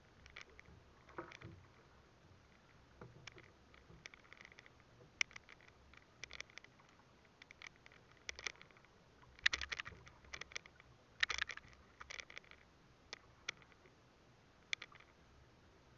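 Irregular light clicks and crinkles of plastic bottles being handled, thickest in two short flurries about ten and eleven seconds in.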